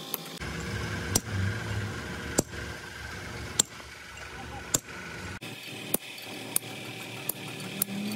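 Sharp metal-on-metal hammer strikes on a drift against a truck differential pinion gear shaft, driving its bearing into place. The blows come about one every second and a bit, then closer together in the last couple of seconds.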